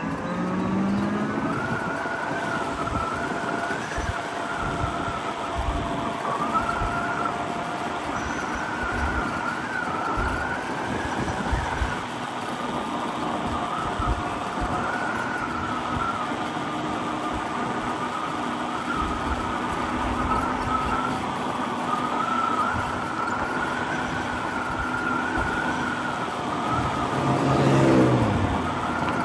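Electric motorcycle motor whine that rises as it accelerates, holds at cruising speed with a slight wavering in pitch, and glides down as it slows near the end. Wind buffets the microphone underneath.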